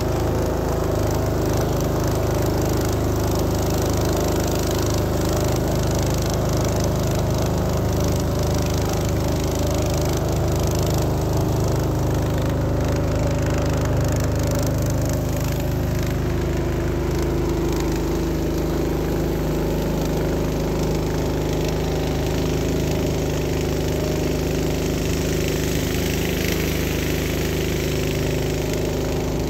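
Motorboat engine running steadily at a constant pitch, with water rushing along the hull.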